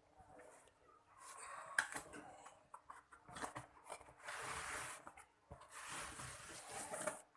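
Packaging being handled and torn open: rustling and tearing with scattered clicks, in two longer stretches in the second half.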